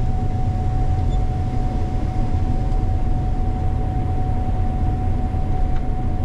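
Gleaner combine harvesting soybeans, heard from inside the cab: a steady engine and machine rumble with a constant high whine over it.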